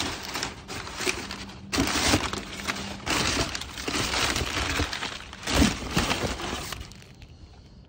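Hands rummaging through a recycling bin: packaging and rubbish rustling, crunching and knocking about in quick bursts, dying down about seven seconds in.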